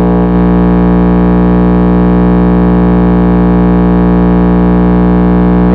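Large outdoor sound system playing one loud, steady buzzing synthesizer tone during its sound check.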